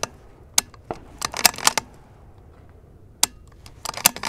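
ARC Mausingfield bolt-action rifle being handled after a light-strike misfire: a run of sharp metallic clicks and clinks, a pause of about a second midway, then more clicks near the end.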